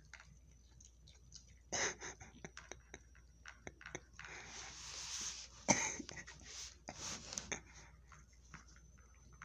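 Small dog eating from a plastic bowl: irregular crunches and clicks of chewing. There are a few louder knocks, the strongest a little past the middle, and a stretch of rustling noise just before it.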